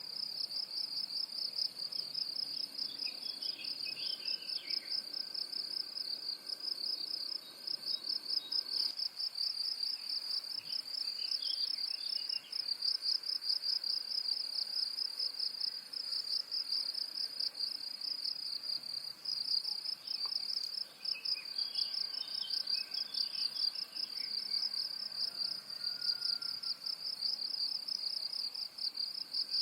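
Insects trilling steadily at a high pitch in a rapid, even pulse, with faint short bird chirps breaking in three times.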